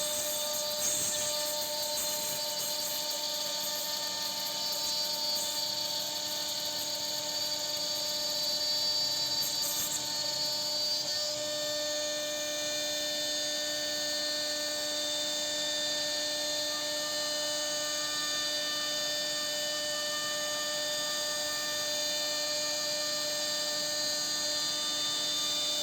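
CNC router spindle running steadily as it carves wood, a steady whine of several held tones over a hiss.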